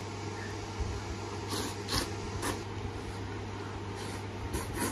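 Slurping and chewing while eating hot-pot meat and broth from a bowl: a few short, sharp slurps in the middle and again near the end, over a steady low hum.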